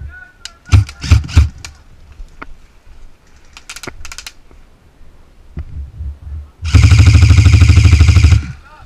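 VFC HK416 airsoft electric rifle (AEG) firing: three loud sharp shots about a second in, then a rapid, even full-auto burst lasting about a second and a half near the end.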